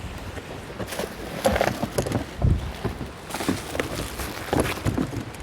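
Plastic parts and packaging of an electric pressure washer being handled: irregular rustling with a string of sharp clicks and knocks.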